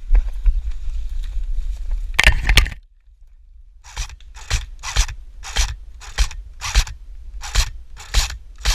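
Footsteps crunching on dry ground or brush at a walking pace, about two steps a second. Before them come scraping and rubbing over a low rumble, which cut off suddenly about three seconds in.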